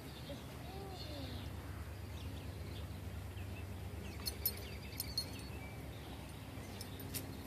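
Faint bird chirps over a steady low rumble, with a few sharp clicks, the loudest about four and a half and five seconds in, and one more near the end.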